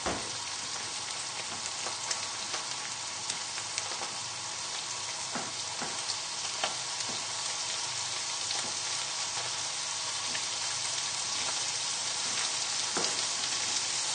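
Chicken livers frying in hot butter in a pan: a steady sizzle with scattered small crackles, getting slightly louder toward the end.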